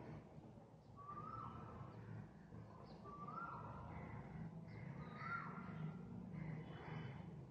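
A bird calling three times, about two seconds apart, each call a short rising then falling cry over a faint low background hum.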